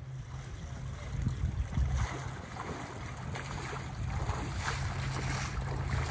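Water splashing as a person wades through knee-deep lake shallows, irregular sloshing steps, over a steady low rumble.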